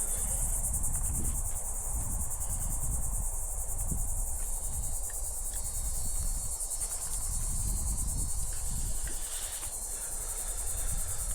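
A chorus of insects trilling steadily in a high, rapidly pulsing buzz, over a low, uneven rumble.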